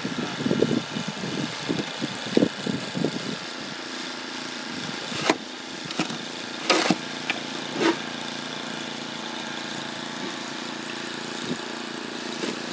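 Snowblower's small engine running steadily, with several short sharp scrapes or knocks over it in the middle.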